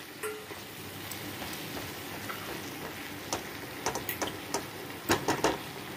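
Cluster beans and tomato sizzling softly in a nonstick kadai as a spatula stirs them, with scattered light scrapes and taps of the spatula against the pan, most of them in the second half.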